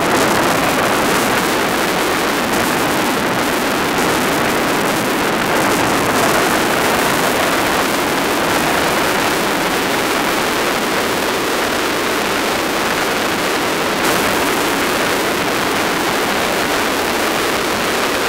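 Steady rushing wind and road noise on an onboard camera riding a Cagiva Elefant motorcycle along a gravel track, with no clear engine note standing out.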